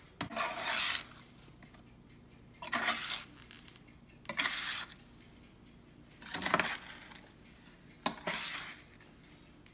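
A slotted spatula scraping and scooping through cinnamon sugar in a baking pan, tossing hot polvorones cookies to coat them. Five short scraping strokes come about every one and a half to two seconds.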